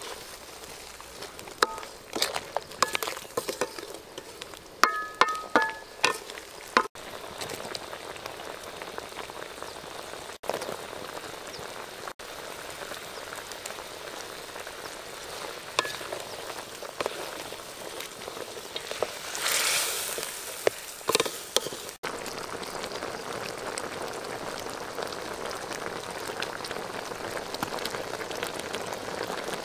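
Chicken feet in a chilli sauce bubbling and sizzling in an aluminium wok. In the first few seconds a wooden spatula stirs them, with sharp knocks and scrapes that make the pan ring briefly. After that the sauce bubbles steadily, with a short louder hiss a little past the middle.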